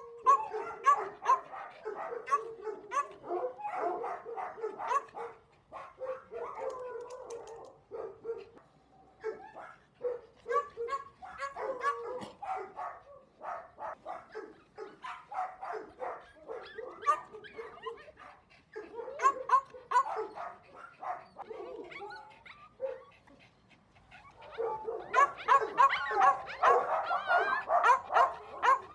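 Several small dogs yapping and barking in quick, short, high calls, excited for treats. The barking briefly dies down a little past three-quarters of the way through, then comes back at its busiest near the end.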